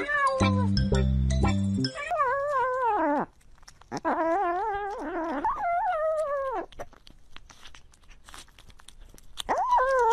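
Domestic cat eating wet food close to a microphone, making long, wavering meow-like calls three times as it eats, with wet clicking chewing and licking sounds between the calls. The first two seconds are the tail of a song with a heavy beat.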